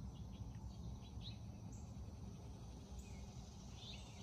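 Faint background ambience: a low steady rumble with a few short, faint bird chirps scattered through.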